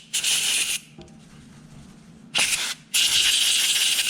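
Compressed air sprayed in three short blasts into a Wahl Detailer trimmer's blade to blow out trapped hair. The last blast is the longest, about a second, near the end.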